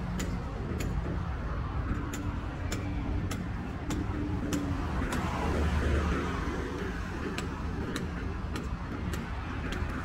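Regular footsteps on paving, a little under two steps a second, over a steady rumble of road traffic that swells briefly about six seconds in.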